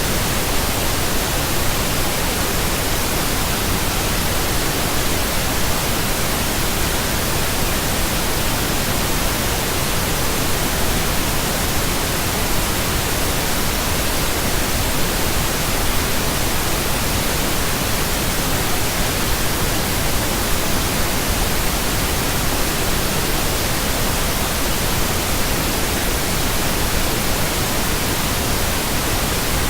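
Steady pink noise: an even, unchanging hiss spread across all pitches, with no tones or events.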